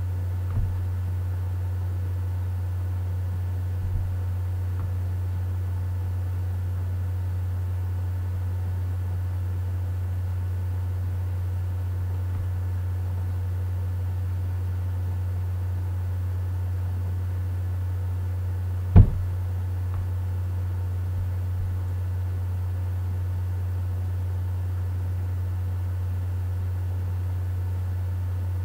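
A steady low hum, with a light knock about half a second in, another about four seconds in, and a sharper, louder knock about two-thirds of the way through.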